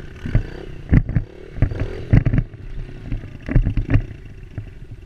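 Dirt bike running as it is ridden over bumpy grass, heard from a helmet-mounted camera. The loudest sounds are repeated heavy low thuds, about nine over five seconds, of bumps and wind buffeting hitting the microphone.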